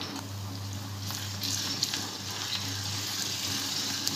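Sliced onions and ginger-garlic paste sizzling in hot mustard oil in a steel kadai, the sizzle growing louder about a second and a half in, with a few light ticks of a steel ladle stirring the pan.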